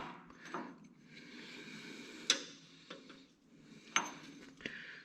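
Light metal clinks and taps as a tractor hydraulic valve plate is handled and set onto its housing: three sharp clinks, the loudest about halfway through, with faint rustling between.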